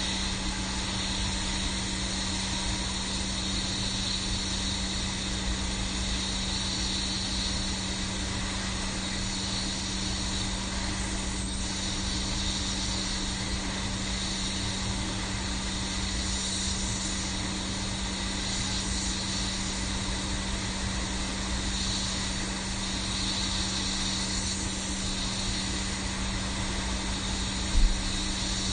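Hot air rework station blowing steadily while a chip is desoldered from a circuit board, with a steady low hum under it and a brief knock near the end.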